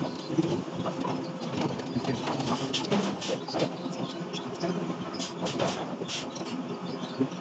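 Forging-shop machinery running, a continuous mechanical din with frequent irregular metallic clanks and knocks.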